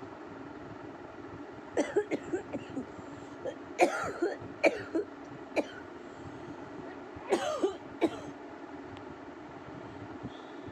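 A woman with a head cold coughing and clearing her throat in short bursts, several in quick succession about two seconds in, more around four to five seconds, and a last pair near the eight-second mark.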